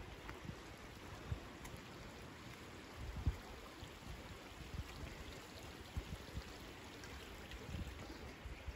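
Shallow stream flowing steadily with a constant rushing of water, and uneven low buffets of wind on the microphone, the strongest about three seconds in.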